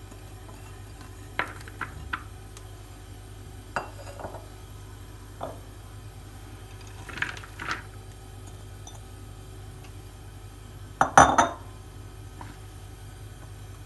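Scattered light clinks and knocks of kitchen dishes and utensils as vegetables are put into a mixing bowl, with a louder clatter about eleven seconds in.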